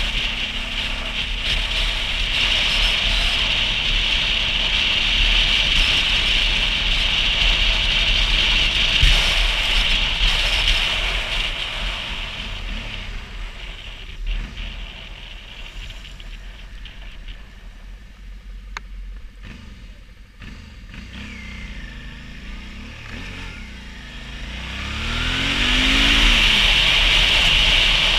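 Motorcycle riding at speed, with loud wind rush over the engine. About halfway through it slows and the wind noise falls away, leaving a quieter engine. Near the end the engine revs climb as it speeds up again, and the wind rush comes back.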